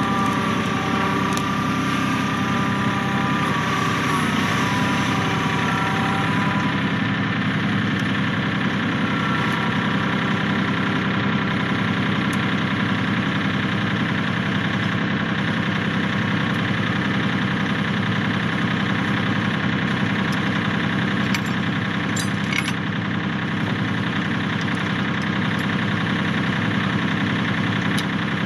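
Kioti 4010H compact tractor's diesel engine idling steadily. A higher whine sounds over it for the first several seconds and fades out as the tractor finishes backing up to the log. A few faint clinks come later.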